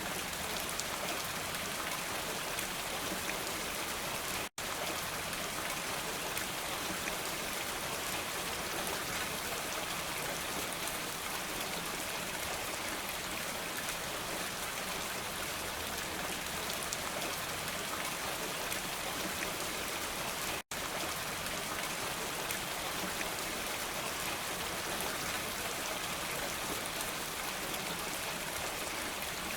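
Steady, dense rain falling, an even patter with no thunder. It cuts out to silence for a split second twice, where the looped recording is spliced.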